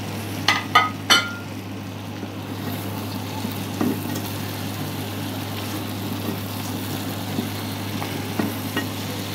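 Fried fish pieces sizzling in oil and spice paste in a nonstick pan as they are stirred in, with three sharp knocks of utensil or fish against the pan within the first second or so. A steady low hum runs underneath.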